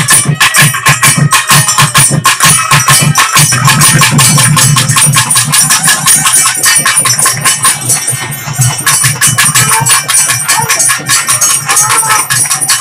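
Loud, fast traditional drumming with other percussion, a dense, unbroken stream of strokes typical of Tamil temple festival music.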